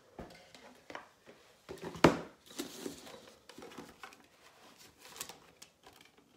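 Handling noise close to the phone's microphone: scattered clicks, taps and rustling, with one sharp knock about two seconds in.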